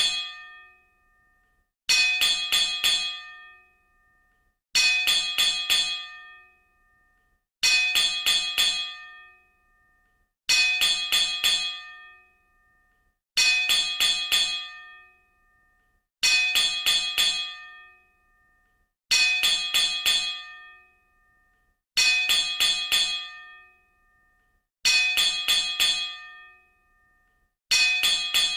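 A metallic bell struck in quick clusters of four or five strikes, each cluster ringing out for about a second, repeating about every three seconds as a looped bell sound effect.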